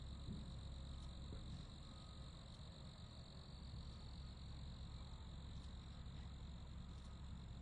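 Crickets chirping in a continuous, even chorus, over a low background rumble.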